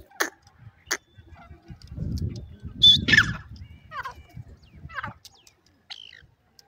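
Bird calls: a loud high call about three seconds in, followed by several short downward-sliding calls about a second apart. A few sharp clicks come near the start.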